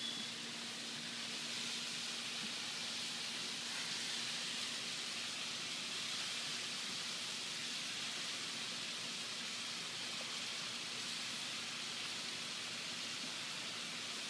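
Chicken pieces shallow-frying in butter and oil in a frying pan: a steady, even sizzle.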